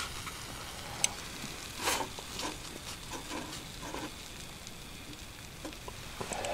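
Faint sizzling of bacon and fried eggs in a small folding frying pan. A sharp click comes about a second in, followed by a few soft knocks and rustles of handling.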